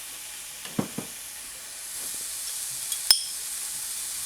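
Onion-tomato masala sizzling steadily in oil in a pan. There are two soft knocks about a second in, and a sharp ringing metal clink a little after three seconds, as the spoon and pan are handled.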